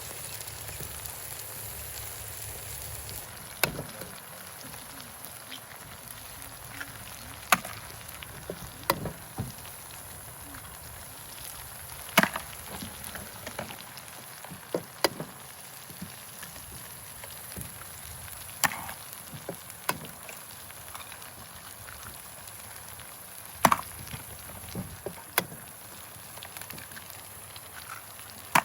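Scattered sharp cracks and knocks at irregular intervals, several seconds apart, over a faint steady hiss.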